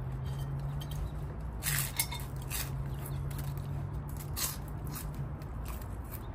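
Mealtime eating sounds: scattered clicks and clinks of utensils against dishes, with crunchy chewing of a raw-vegetable salad, over a low steady hum that stops about five seconds in.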